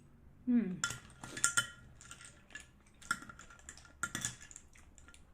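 Spoon, bowl and clam shells clinking and clicking while eating steamed clams: scattered sharp, ringing clinks in small clusters.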